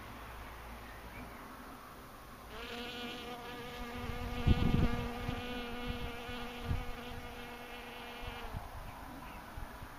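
Honeybee buzzing steadily in flight close by, starting about two and a half seconds in and stopping about a second and a half before the end. A few low thumps on the microphone come near the middle.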